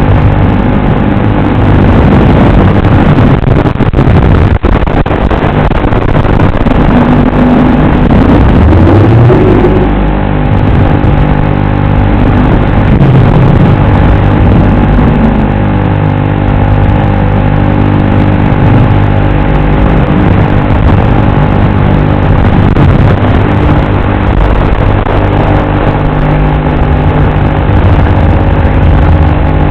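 FPV quadcopter motors and propellers buzzing steadily, with the pitch sliding up and down as the throttle changes.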